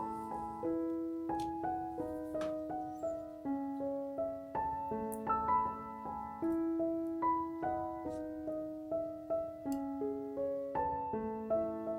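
Background music: a gentle solo piano melody of single notes, played at an even pace, with a few faint clicks.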